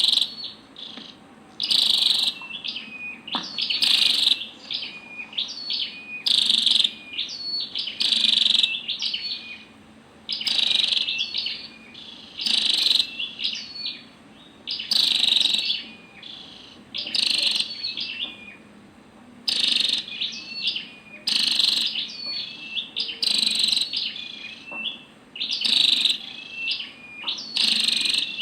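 Female red-headed flowerpecker calling: sharp, high chirping bursts repeated about every two seconds, with thin, short, high notes between them.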